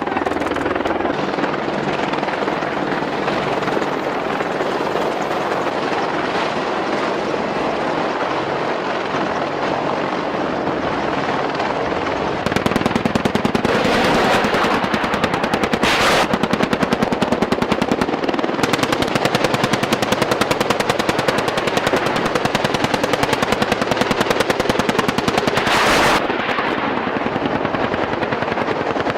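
Steady helicopter-like engine and rotor drone, then from about twelve seconds in sustained rapid automatic gunfire during a live-fire military exercise, with a few louder blasts standing out over the continuous firing.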